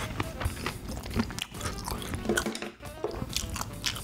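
Close-miked chewing of spicy boneless chicken feet, many short wet clicks, over background music.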